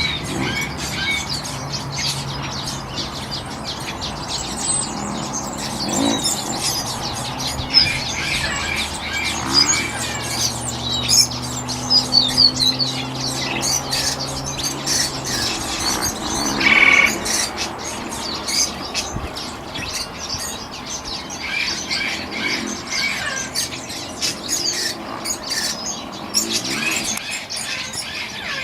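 Many small birds chirping and calling at once, with short tweets and trills overlapping, and a few louder calls now and then. A low steady hum runs underneath for the first half.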